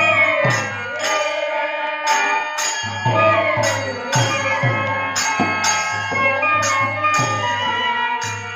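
Bengali kirtan music: a bamboo flute (murali) melody over harmonium, with khol drum and small hand cymbals (kartal) struck in a steady beat about twice a second.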